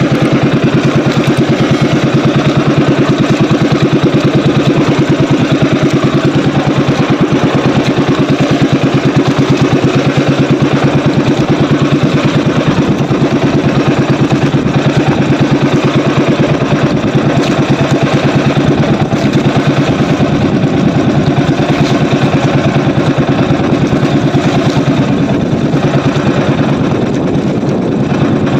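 Small outrigger fishing boat's engine running steadily in an even, continuous drone, easing off slightly near the end.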